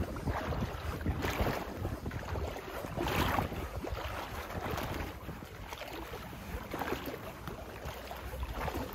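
Someone wading through floodwater: the water swishes and sloshes with each stride, about once a second. Wind buffets the microphone underneath.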